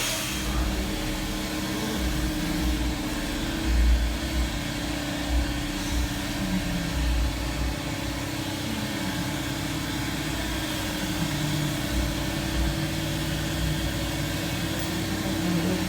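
Honda S2000's 2.2-litre four-cylinder engine running at a steady idle, with a few irregular low thuds.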